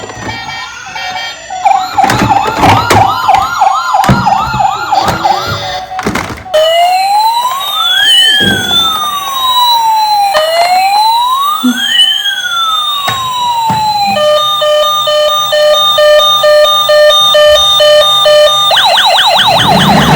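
Electronic toy emergency-vehicle sirens: a fast warbling yelp mixed with clicks and knocks, then a slow rising-and-falling wail about halfway through, then an alternating two-tone hi-lo siren, and a fast yelp again near the end.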